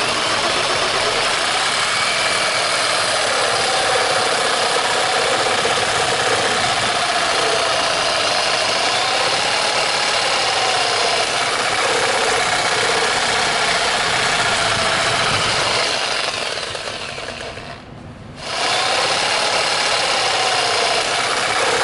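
Electric jigsaw cutting through the steel casing of an oil filter: a steady, rattling motor-and-blade noise whose pitch wavers as the blade bites. Near the end it dies away for a moment, then starts again.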